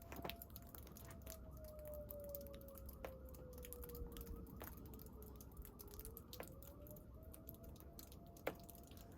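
A faint, distant siren wailing: its pitch slowly falls, rises again near two-thirds of the way through, and then holds. Scattered faint ticks sound under it.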